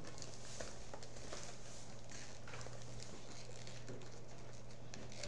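Plastic shrink-wrap on a multipack of bottled tea crinkling and crackling in irregular little clicks as fingers pick and scratch at it, trying to tear it open. A low steady hum runs underneath.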